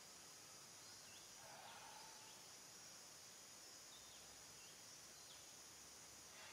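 Near silence: faint outdoor background hiss with a few very faint, short high chirps scattered through it.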